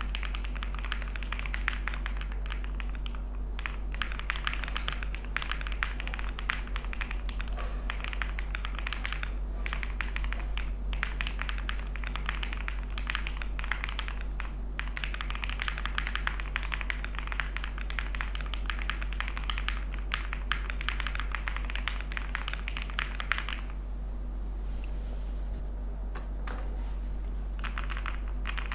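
Typing on a fully foamed Class65 V2 65% mechanical keyboard with lubed Durock POM switches and Cannoncaps 407 keycaps: a rapid, continuous run of keystrokes. The typing pauses for a few seconds near the end, then resumes. A steady low hum sits underneath.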